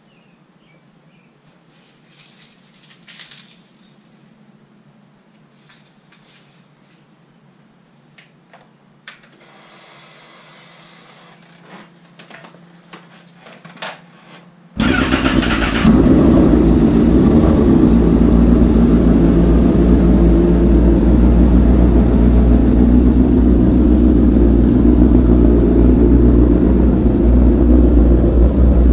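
A few faint clicks and knocks for about the first half. Then the 2016 Honda CBR1000RR's inline-four engine, fitted with a Toce exhaust, fires up suddenly and runs loud and steady to the end.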